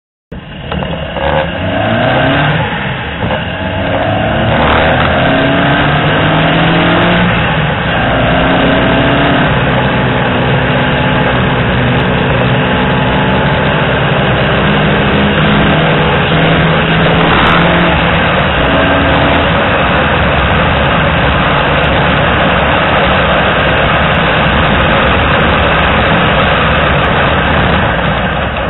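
Peugeot 205 GTI's 1.6-litre four-cylinder engine at full throttle on track. Its pitch climbs and falls back several times in the first ten seconds as it is revved up through the gears, then it runs at high revs under heavy wind and road noise.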